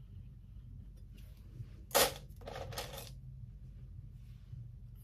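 Makeup brushes and tools being handled: a sharp clack about two seconds in, then a short clatter, over a low steady room hum.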